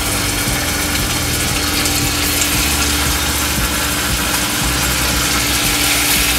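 Hot oil sizzling and crackling steadily in a skillet as bacon-wrapped shrimp are laid into it to fry.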